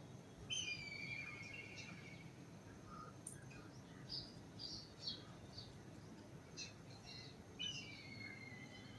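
Birds calling. Two similar trilled calls, each about a second and a half long and falling slightly in pitch, come just after the start and again near the end, with short scattered chirps between them.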